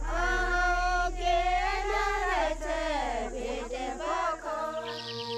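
A voice singing a slow, melismatic melody, holding long notes and bending them up and down, over a steady low drone; the voice fades out near the end as a quick run of short high chirps begins.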